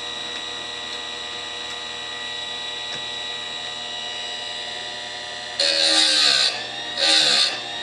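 Electric bench-type chainsaw sharpener's motor running with a steady hum, then its grinding wheel biting into the chain's cutters twice near the end: two harsh grinds, the motor's pitch sagging under the load each time.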